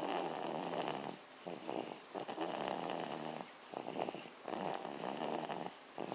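Baby snoring in sleep: rasping breaths in a regular rhythm, the stronger ones a little over two seconds apart, with softer breaths between them.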